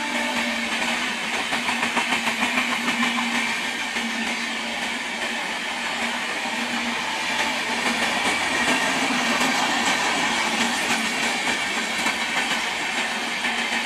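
Red LHB passenger coaches of an express train rolling past, the wheels clattering over the rail joints in quick repeated clicks over a steady rumble and hiss.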